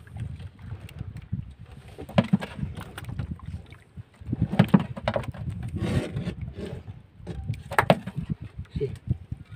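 Clattering knocks and rustling of fish being unhooked from a sabiki rig and a landing net on a small boat's deck, with sharper knocks about two, four and a half and eight seconds in, over a steady low rumble.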